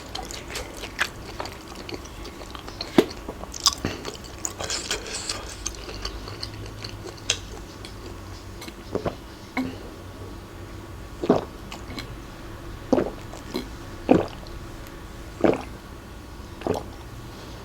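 Close-up chewing and crunching of food, with wet squishy mouth sounds and scattered crisp crunches; in the second half four louder crunches come about a second and a half apart.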